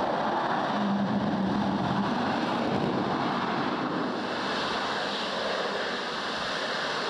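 Steady rushing hiss of steam and water at the RS-25 test stand just after engine shutdown, with a low hum for the first two seconds, easing a little about four seconds in.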